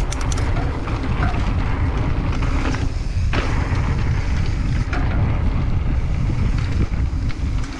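Steady low rumble of wind buffeting the microphone of a helmet-mounted GoPro while riding a mountain bike.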